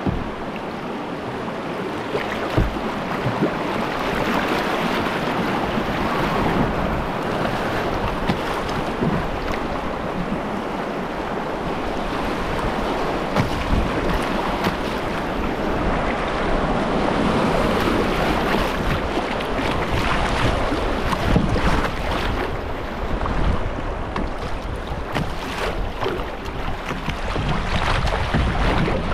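Rushing water of a shallow river rapid, with water splashing against the hull of an open canoe close to the waterline as it runs through. Wind buffets the microphone, and there are a few short knocks.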